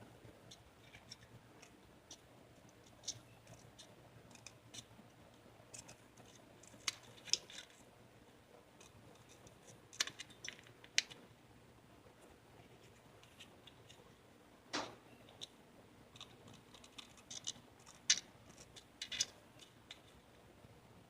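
Scissors snipping at a halved plastic ping pong ball, trimming it down to size: faint, irregular small snips and clicks, a few louder ones in clusters.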